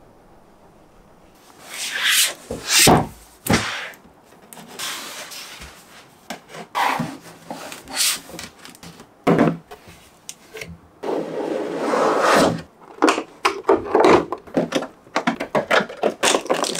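Cardboard box being handled and opened: scraping, rubbing and knocking of the box and its flaps, starting about a second and a half in. Near the end come quicker crackles of clear plastic packaging being handled.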